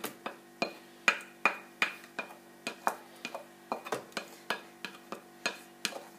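Wooden spoon tapping and scraping against the rim and inside of a bowl as batter is scraped out, in short, sharp knocks about three times a second.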